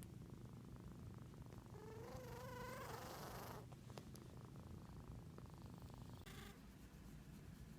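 Persian cat purring steadily and faintly. In the middle a wavering, whistle-like tone lasts a second and a half, and near the end there is a short breathy sniff: the snuffly breathing of a cat with the sniffles.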